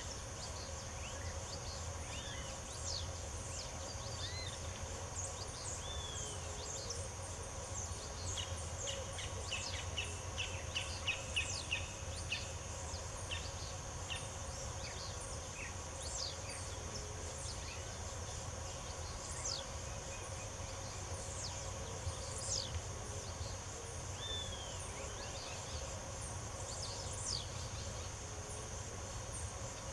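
Wild birds singing and calling in short whistled and sweeping notes, with a quick run of repeated notes about nine seconds in. Underneath runs a steady high insect drone.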